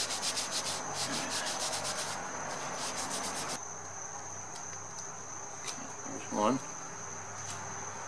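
A paper towel rubbed briskly over a rubber bicycle inner tube to dry the scuffed patch area, a quick run of scrubbing strokes that stops about three and a half seconds in. A steady high-pitched whine runs throughout, with a few faint ticks of handling afterwards.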